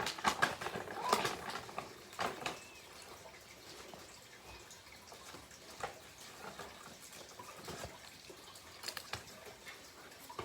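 Packaging being handled and opened: crackly rustling and sharp clicks, busiest in the first two and a half seconds, then a few scattered clicks.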